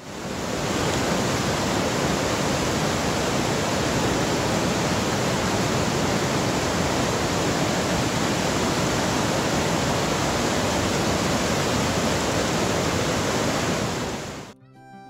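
River water rushing over rapids and a low weir: a loud, steady rush with no rhythm, fading in at the start and stopping shortly before the end.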